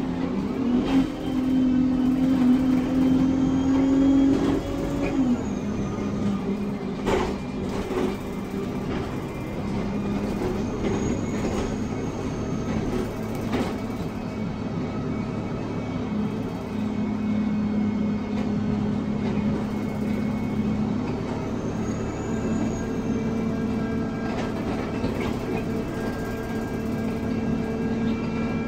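ADL Enviro 200 single-deck bus heard from inside the saloon, its engine and unusually loud Voith automatic gearbox whining. The pitch rises under acceleration and drops at an upshift about five seconds in. A sharp knock follows about two seconds later, and the drive runs on with a steadier drone and a rising whine near the end.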